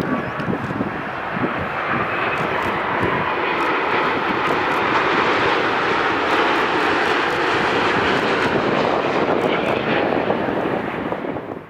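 Boeing 787 Dreamliner jet airliner landing, its engines giving a steady, loud rushing noise that swells over the first couple of seconds and then holds.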